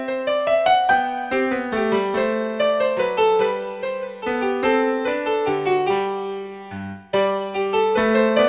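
Background music played on piano-like keyboard: a gentle melody of struck notes that each fade, with a brief break about seven seconds in.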